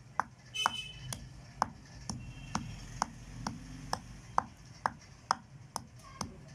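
Pestle pounding dry ginger in a mortar: sharp, regular strikes about twice a second.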